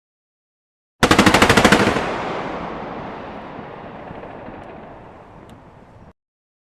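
Machine gun firing one short burst of about a dozen rapid shots, followed by a long echoing tail that fades away over about four seconds and then cuts off abruptly.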